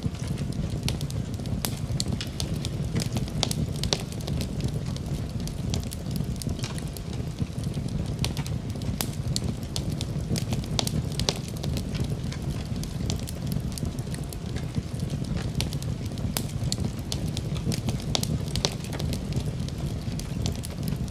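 Fire burning in a fireplace: a steady low rumble of flames with frequent sharp crackles and pops.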